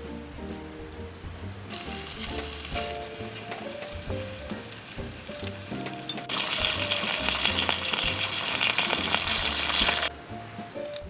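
Food sizzling as it fries in a hot pan. The sizzle is light from about two seconds in, grows much louder about six seconds in, and stops abruptly near the end. Background music plays throughout.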